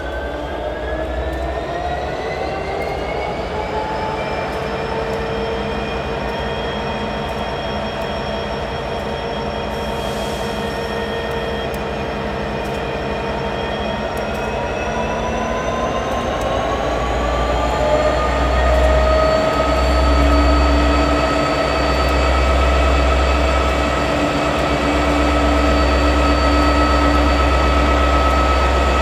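EMD 20-cylinder 710 two-stroke diesel of an SD80MAC freight locomotive running and throttling up. Its pitch rises over the first few seconds, holds, then climbs again about halfway through as a deep rumble builds and stays.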